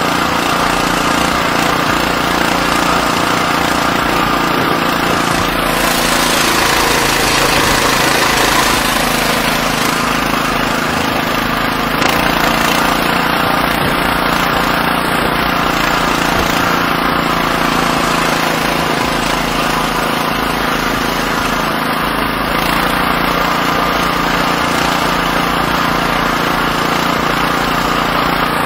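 Oka walk-behind tractor's single-cylinder petrol engine running steadily at a constant speed while the machine is driven along a dirt track.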